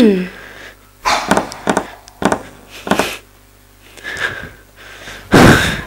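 A series of short, sharp knocks, then one loud thud near the end: a heavy door banging.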